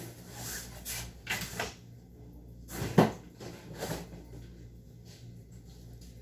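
Handling noises from work on a toilet installation: scrapes and light knocks of hard parts, with one sharp knock about three seconds in, over a low steady hum.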